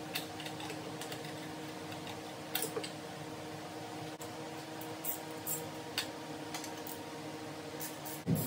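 Scattered light clicks and taps of a screwdriver and loose parts being worked in an engine bay while the air intake is taken apart, over a steady low hum.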